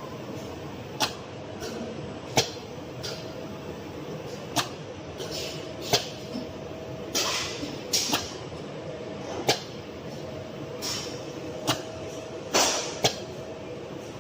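Automatic two-component epoxy potting and dispensing machine running, with sharp mechanical clacks at uneven spacing about every one to two seconds and a few short hisses of air.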